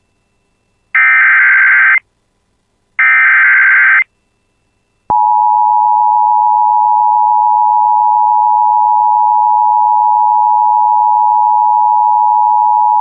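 Emergency Alert System tones: the last two of the SAME header data bursts, each about a second long and two seconds apart. About five seconds in, the steady two-tone EAS attention signal starts and holds, announcing a National Weather Service warning.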